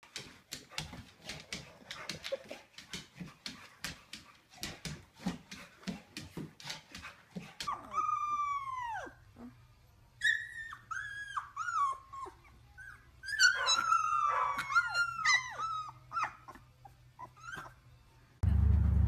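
Young puppies yelping and whining in high calls that slide down in pitch: one long call, then a string of short ones, some overlapping. Before them comes a quick run of clicks and taps, like a dog's claws scrabbling on a hardwood floor.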